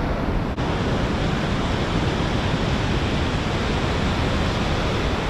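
Steady rush of river white water, a constant noise with no breaks.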